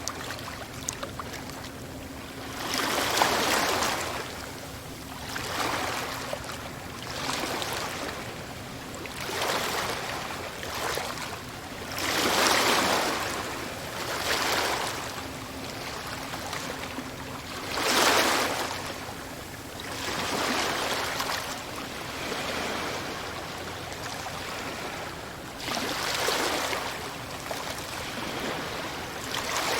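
Sea waves breaking and washing up a shore, rising and falling in surges every two to three seconds, with the largest waves about three, twelve and eighteen seconds in.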